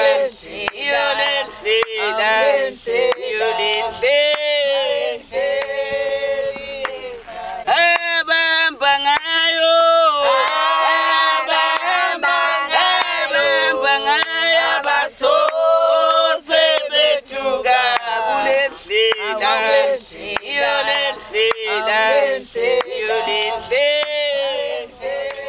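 A choir of men's and women's voices singing together, with long held notes.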